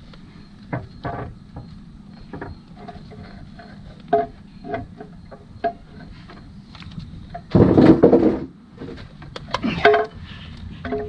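Tools and metal engine parts being handled during engine work: scattered light knocks and clicks, with a louder, rougher noise lasting about a second a little past the middle.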